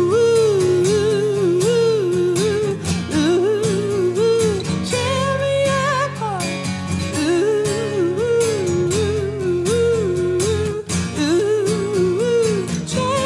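Acoustic guitar strummed steadily under a man's voice singing a wordless, repeating melody.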